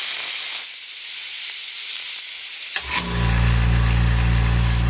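Unregulated air blowgun hissing a steady blast of compressed air from a California Air Tools 10-gallon ultra-quiet compressor. About three seconds in, the compressor's motor kicks on with a click and a steady hum under the hiss, cutting in because the tank pressure has dropped to 90 PSI.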